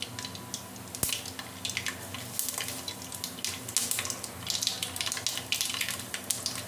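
Mustard seeds crackling and popping in hot oil in a kadhai as they begin to splutter for a tadka (tempering), the pops growing thicker after a couple of seconds.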